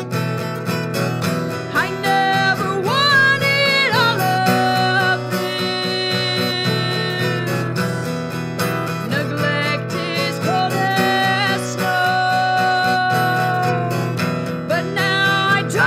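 Acoustic guitar strummed in a steady rhythm, with a woman's voice singing long, wavering held notes over it.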